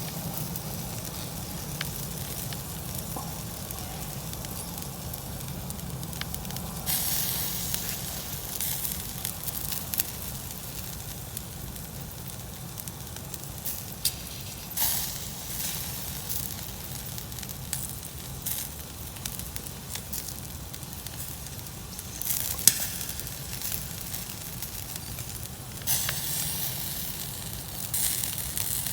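Wood campfire burning: a steady crackle with sharp pops, and bursts of hissing several times.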